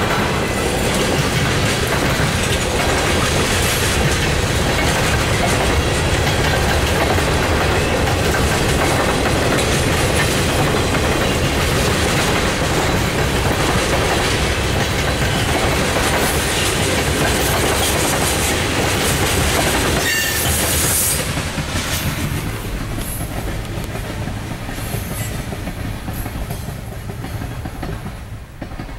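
Freight train of tank cars rolling past, with a steady noise of steel wheels on rails. The sound drops in level about 20 seconds in.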